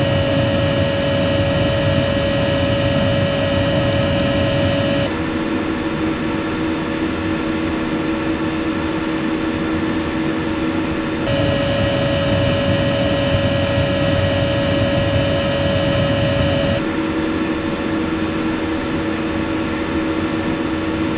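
Eberspächer Airtronic diesel air heaters running at full power, the sound cutting between two units: the Airtronic 1 with a steady higher whine, and the Airtronic 3 with a lower steady hum. It starts on the Airtronic 1, switches to the Airtronic 3 about five seconds in, back to the Airtronic 1 about eleven seconds in, and to the Airtronic 3 again about seventeen seconds in.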